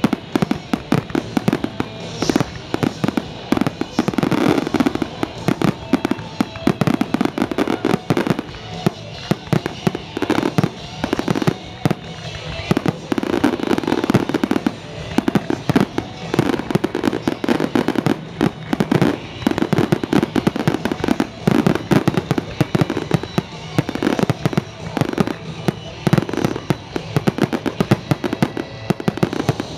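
Fireworks display in a dense barrage: aerial shells bursting one on top of another, many sharp bangs a second without a break.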